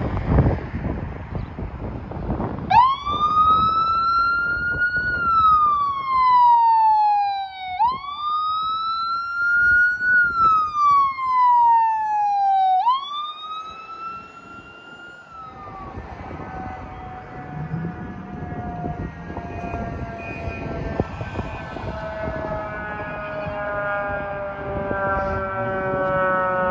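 Ambulance electronic siren on wail: three slow rise-and-fall sweeps, the third fading out. Then a fire engine's siren sounds, its pitch falling slowly and steadily as it winds down.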